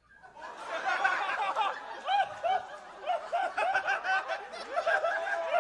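Comedy club audience laughing in response to a punchline, many overlapping laughs that rise about half a second in and carry on without a break.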